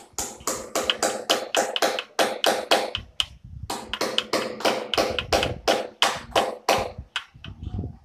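A rapid series of sharp taps or knocks, about four a second, with a short pause about three seconds in, each stroke ringing briefly.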